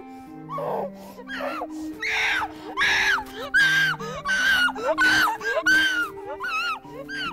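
A young person screaming in distress: about ten short, high cries in quick succession, each falling off in pitch at its end, over slow sustained background music notes.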